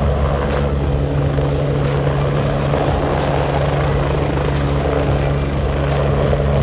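Air ambulance helicopter lifting off and climbing away at low height, its rotor and engines loud and steady.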